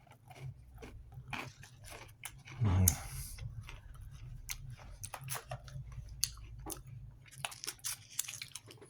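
Someone chewing crunchy cheddar-cheese-filled Combos crackers, with many short, irregular crisp crunches and a brief, louder low sound about three seconds in.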